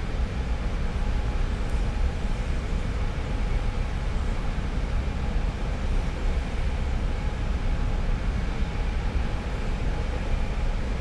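Steady industrial rumble and hiss of an oil refinery heard close up, heaviest in the low end, with faint steady machine hums running through it.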